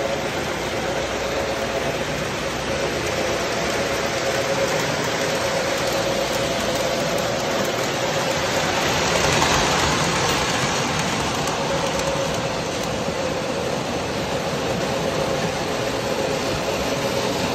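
Model trains running on a layout's track: a steady motor hum and wheel rumble, swelling for a moment about halfway through as a train passes close.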